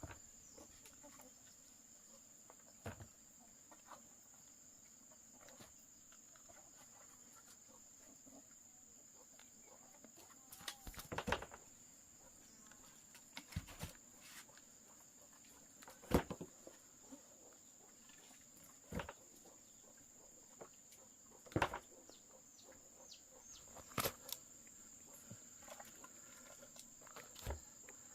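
Steady high-pitched insect chirring, with sharp knocks and snaps every few seconds.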